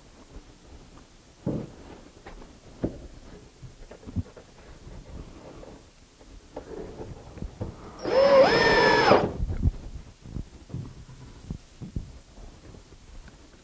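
A cordless drill drives a screw in one burst of about a second, about eight seconds in. Its motor whine rises and then holds steady. Scattered light knocks and clicks from handling wood and tools come before and after it.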